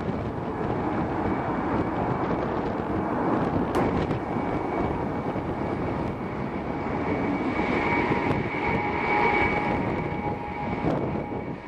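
Jet aircraft engines running, most likely the Il-76M transport's turbofans: a steady rushing noise with a high engine whine that grows stronger in the second half.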